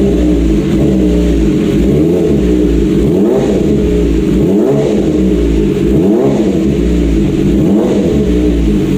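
Kawasaki ZX-25R's 250 cc inline-four engine, through an R9 full titanium exhaust, running at a fast idle while still warming up. It is revved in about four quick throttle blips, each rising and falling back, in the second half.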